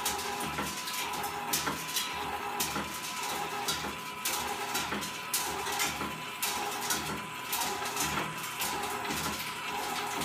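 Stainless steel coffee-roaster drum turning on a grill spit, driven by a 52 RPM AC gear motor: irregular metallic clinks and clanks, one or two a second, over a steady faint whine.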